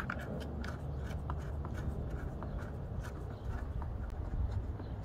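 Small, irregular clicks and rubbing of power and transducer cables and their plastic plugs being handled and pushed into the back of a Garmin ECHOMAP fish finder head unit, over a low steady rumble.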